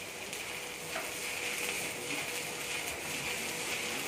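Stick (shielded metal arc) welding arc burning on a steel pipe joint: a steady crackling sizzle, a little louder from about a second in.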